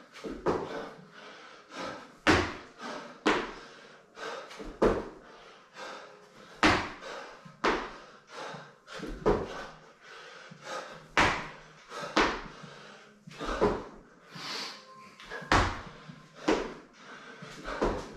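Repeated thuds of feet and hands landing on rubber gym floor mats during burpees, about one impact a second.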